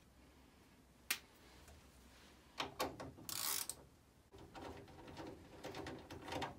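Hands working plastic electrical connectors and wiring loose on a Baxi 600 combi boiler's burner assembly: a sharp click about a second in, then rattling and scraping handling noises.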